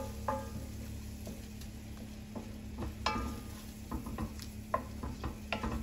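Wooden spatula stirring and scraping onions and flour around an enamelled cast iron pan, with irregular scrapes and knocks against the pan over a light sizzle of frying as a roux is started.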